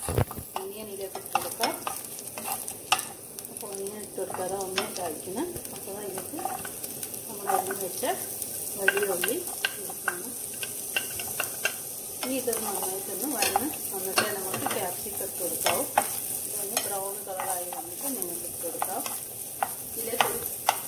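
Chopped garlic and onion frying in sunflower oil in a pan, with a steady sizzle. A wooden spatula stirs and scrapes them, making frequent sharp taps and ticks against the pan. Fresh chopped onion goes in partway through.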